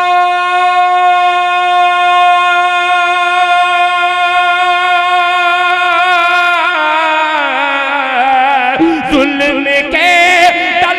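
A man singing a naat (Urdu devotional poem), holding one long steady note into a microphone. About six seconds in the note begins to waver into ornamented turns, dipping in pitch and rising again near the end.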